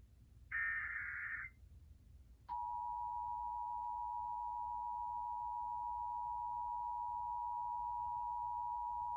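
Emergency Alert System broadcast test: a one-second burst of the SAME digital header, a buzzy data warble, about half a second in. About two and a half seconds in, a click starts the EAS attention signal, two tones of 853 and 960 Hz sounding together, which holds steady.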